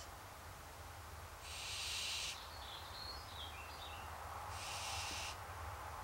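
Barn owl's wheezy, hissing food-begging call, given twice about three seconds apart, each call lasting just under a second, with a faint chirping between them.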